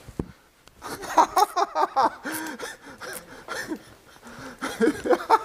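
Breathless human voices exclaiming and laughing, in two bouts: about a second in and again near the end.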